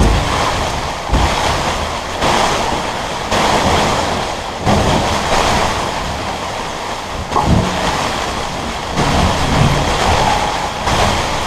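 Rainstorm noise: a steady rushing of rain and wind that swells and eases every second or two, with a few low gusts buffeting the microphone.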